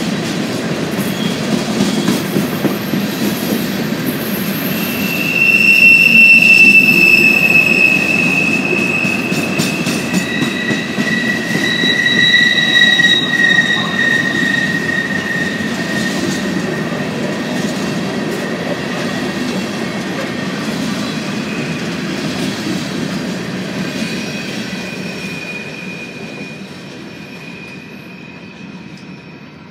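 Empty coal hopper cars of a freight train rolling past, with a steady low rumble and long high-pitched wheel squeals. It is loudest about five seconds in and again near twelve seconds, then fades as the end of the train moves away.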